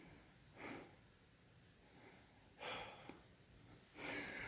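Three soft breaths close to the microphone, about a second and a half apart, against near silence.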